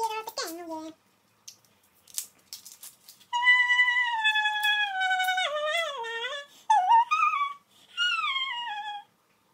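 A woman's voice in three long, high-pitched wails that fall and waver in pitch, mock crying over the sting of a freshly peeled onion. Before them, a sung line ends and a few faint clicks of onion skin being peeled are heard.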